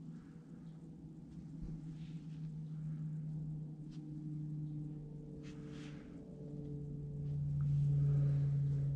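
Soft background music of sustained low tones that shift slowly in pitch and swell toward the end, with a few faint handling clicks and rustles.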